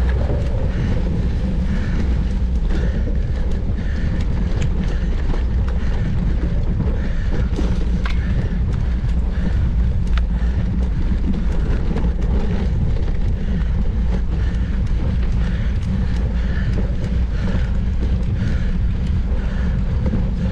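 Steady wind rushing over the microphone of a camera on a mountain bike ridden at race speed, with a few sharp clicks from the bike about halfway through.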